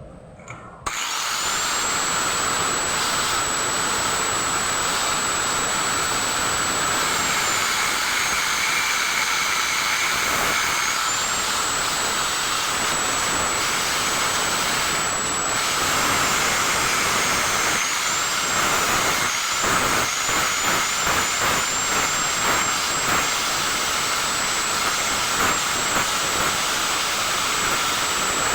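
Small high-speed electric power tool running steadily, starting about a second in, its high whine dipping briefly as if under load, with an uneven rasping flutter in the second half.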